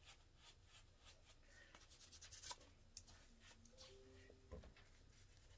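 Near silence with faint scattered taps and light scratchy rubbing, as a flat stencil brush is worked in paint. A few faint short hums come about four seconds in.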